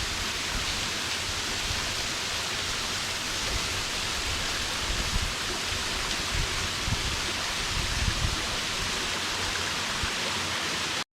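Waterfall rushing steadily, with a few brief low rumbles, stopping abruptly at the very end.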